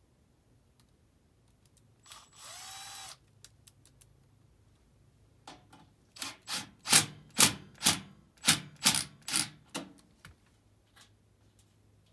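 A cordless drill/driver runs for about a second, its whine rising as it spins up and then holding steady. A few seconds later comes a run of about a dozen sharp knocks, two or three a second, louder than the drill.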